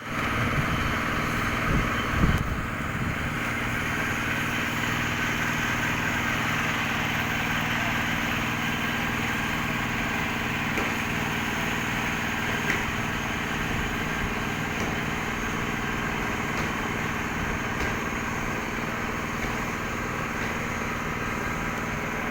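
A steady engine-like motor drone with a constant hum, and a few soft knocks about two seconds in.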